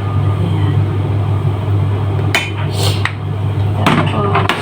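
A few sharp clicks and knocks of a seasoning container being handled, set down and opened, spread over the second half, over a steady low hum.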